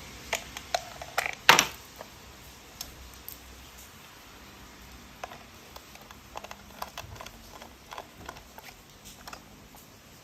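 Hard plastic toy parts being handled and clicked together: irregular small clicks and taps, with one sharp knock about one and a half seconds in.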